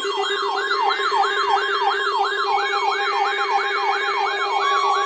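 Weather alert radio sounding its siren-style alarm for an incoming warning: a loud yelping tone sweeping up and down about three times a second over a steady low hum. A steady higher tone joins in about four and a half seconds in.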